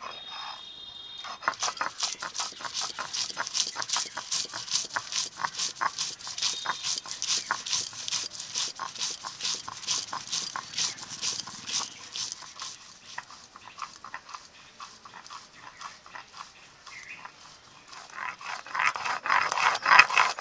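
Grated coconut, mustard seed and green chillies being ground on a flat stone slab (shil-nora) with a stone roller: a fast, continuous run of gritty scraping strokes, louder near the end.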